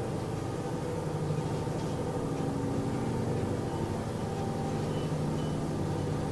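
Steady low drone made of several held pitches, the strongest one deep, unchanging throughout, like a distant aircraft engine that never passes. It is the unexplained night-time noise that went on for hours without stopping.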